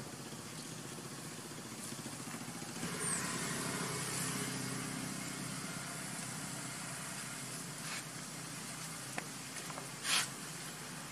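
A motor vehicle engine running steadily, growing louder about three seconds in and then easing off. A short high chirp sounds just after the swell, and a brief sharp sound near the end.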